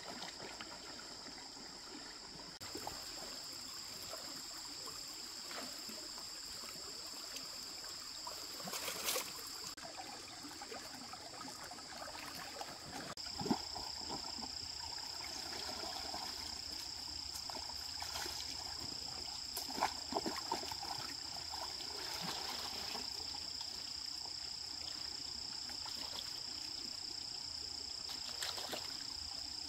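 Water trickling and running, under a steady high-pitched insect chorus. A few short, sharp knocks come near the middle.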